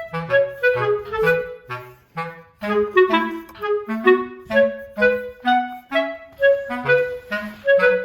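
Background music: a light, bouncy tune of short clarinet-like notes over a simple bass line.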